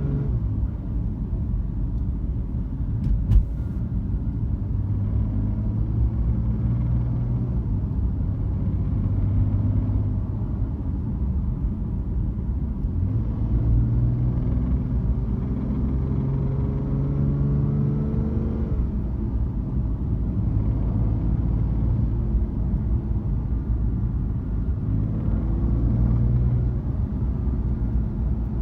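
BMW F80 M3's twin-turbo inline-six engine running under way, its pitch rising as it pulls through the revs twice: over several seconds past the middle, and again near the end. This is the acceleration that brings on a noise the owner finds strange. There is also a single sharp click about three seconds in.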